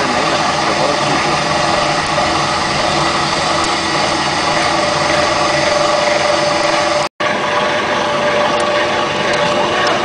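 A machine running steadily: a constant mechanical drone with a few steady tones, cut off for a split second about seven seconds in.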